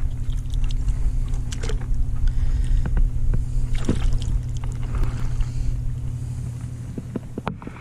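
A few short splashes of water over a steady low rumble with a faint hum, the rumble easing off near the end.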